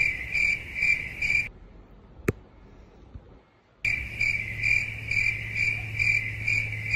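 Crickets chirping, the stock 'waiting, awkward silence' sound effect: evenly repeated high chirps about twice a second over a steady low hum. It cuts off abruptly a little over a second in, leaving a gap broken by one sharp click, then starts again about four seconds in.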